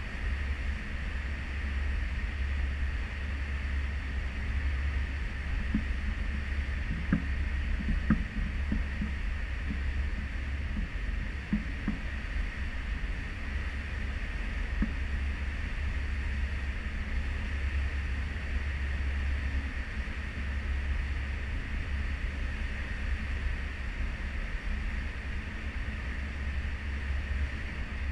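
Cruise ship under way heard from a stern balcony: the steady rushing hiss of the wake churning astern over a constant deep rumble, with a few faint taps about a quarter of the way in.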